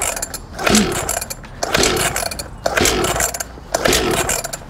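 Recoil pull-starter of a 50cc two-stroke pit bike yanked again and again, about once a second, the engine turning over with a whirring rattle on each pull but never firing. It won't catch because the ignition key has not been fitted.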